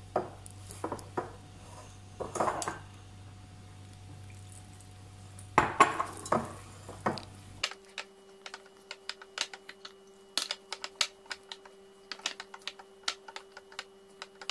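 Hands kneading dough in a glass mixing bowl: irregular knocks and clinks against the glass. They come in a few louder clusters at first, then as a quicker run of short clicks over the second half.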